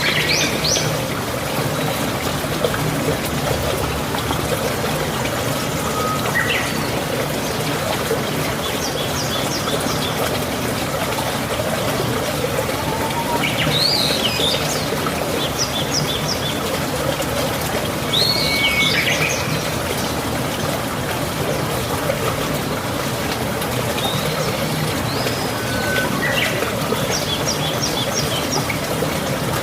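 Running water trickling steadily, with birds chirping and calling every few seconds in short quick phrases.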